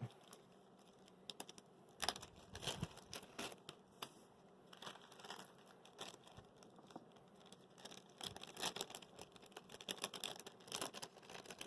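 Faint crinkling and rustling of a small plastic bag of screws being opened and handled, with scattered light clicks.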